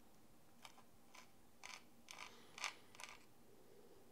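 A small screwdriver tip working at the end of an NVMe M.2 SSD enclosure, making a string of faint light clicks and scrapes about every half second while someone tries to get the heatsink lid off.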